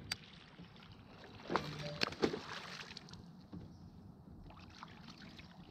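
Handling noises aboard a fishing kayak: a few sharp knocks and rustles, loudest in a cluster about two seconds in, then faint scattered ticks over a low background of water.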